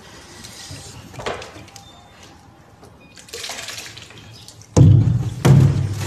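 Water and fish sloshing and splashing as a large plastic tub is tipped and poured into another plastic tub, with two heavy splashes near the end.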